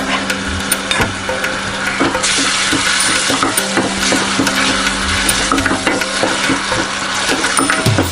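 Ginger-garlic paste sizzling in hot oil in a pan while a spatula stirs it, with many small scraping taps against the pan. A steady low hum underneath stops near the end.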